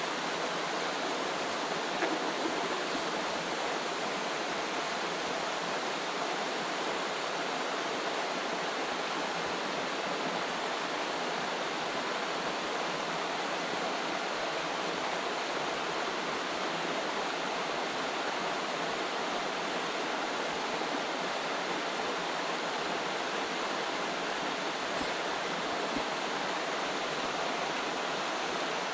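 Steady, unbroken rushing of flowing water, with a single light click about two seconds in.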